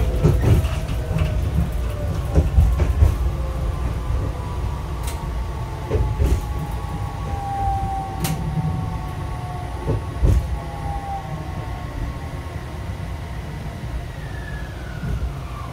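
Fukui Railway F1000 'FUKURAM' low-floor tram heard from inside as it slows to a stop at a station. A low rolling rumble is joined by an electric motor whine that slides down in pitch, with scattered knocks from the wheels and running gear. Near the end a last tone falls away as the tram halts.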